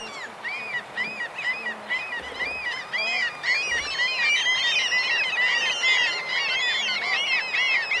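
A flock of birds calling: many short, arching calls overlap in a busy chorus that grows denser and louder about three seconds in.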